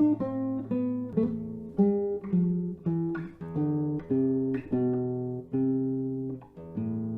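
Solo Spanish guitar playing a slow melody of plucked single notes over a held bass note, ending on a chord left to ring.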